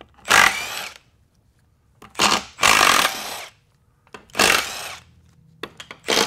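Milwaukee cordless impact wrench hammering out transfer-case bolts in four or five short bursts, each under about a second long.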